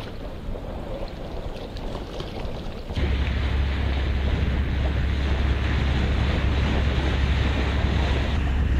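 Wind buffeting the microphone over the wash of choppy water. About three seconds in the wind rumble jumps much louder and stays heavy.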